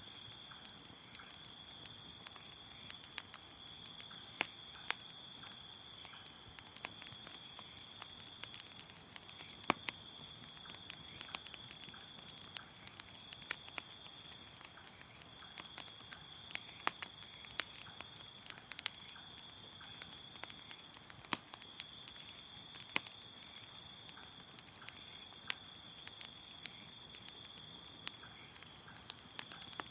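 Crickets chirping in a steady high trill, with a second, lower cricket trill that stops and restarts every few seconds. Over it, a wood fire crackles with irregular sharp pops.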